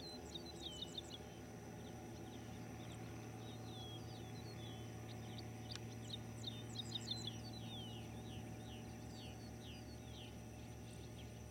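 Small birds chirping with many quick, sweeping notes, busiest around the middle of the stretch, over the faint, steady low drone of a Cessna 182's engine and propeller as it flies away.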